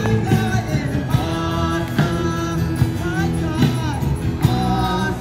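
Christian worship music from a live band: a singer over sustained chords, with a steady beat about every second.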